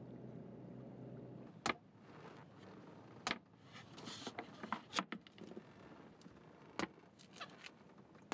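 A low steady hum cuts off about a second and a half in. Then come sharp knocks every second and a half or so, with small clicks and scrapes between: blows and prying on a coconut's fibrous husk as it is husked by hand to get at the nut.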